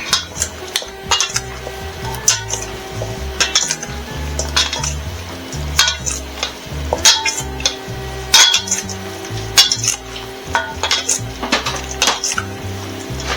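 A utensil clinking and knocking against a mixing bowl in irregular strokes as chicken quarters are tossed in a seasoning rub.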